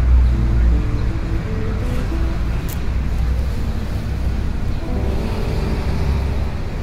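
Steady low outdoor rumble with a noisy haze, and a few faint held music notes over it.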